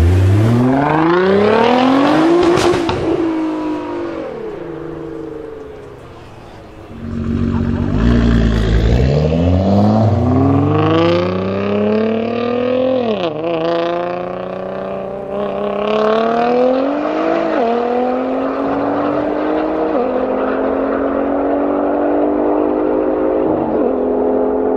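Nissan GT-R R35's twin-turbo V6 accelerating hard. The revs climb steeply on one pull-away, then after a short lull a second launch climbs through the gears, the pitch dropping at each of several upshifts.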